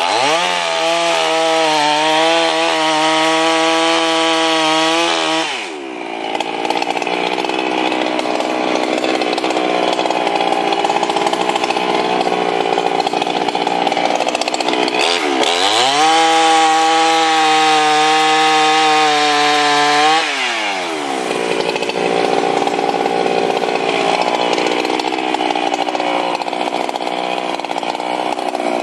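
Neo-Tec 895 two-stroke chainsaw bucking logs, running without a break. Twice it runs up to a steady high pitch and drops back, and between those runs the engine note is rougher and less even.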